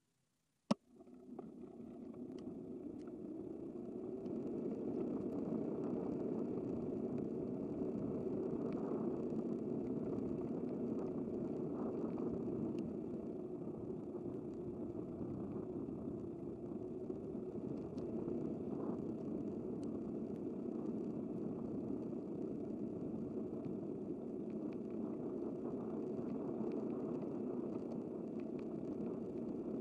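Steady rush of road and wind noise from riding a bicycle on a city street, starting after a brief dropout with a sharp click and building up over the first few seconds.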